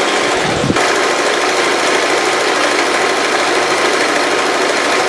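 Sewing machine running steadily without a break.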